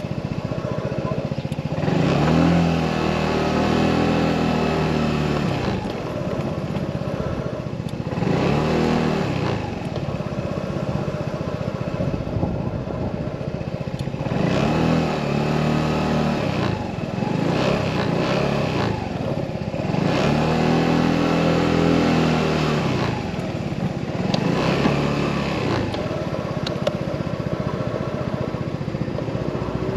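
Motorcycle engine heard while riding, its pitch rising and falling several times as the bike speeds up and eases off, over steady road and wind noise.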